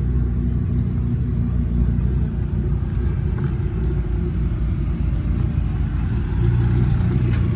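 A steady low rumble, a little louder near the end.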